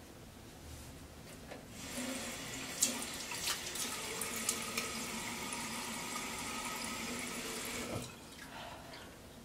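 Bathroom sink tap running into the basin, with splashes as water is scooped up to the face. The water comes on about two seconds in and is shut off abruptly near the end.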